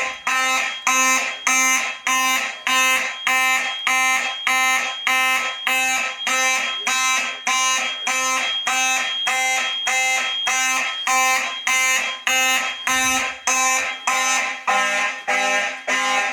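Fire alarm horns sounding in the panel's slow march-time pattern: a loud horn tone pulsing on and off about twice a second. A thin steady high tone runs underneath for much of it, and a lower-pitched horn joins the pulses near the end.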